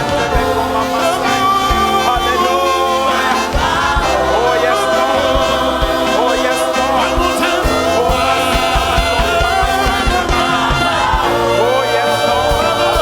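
Congregation singing a gospel worship song together with a live band and a steady beat.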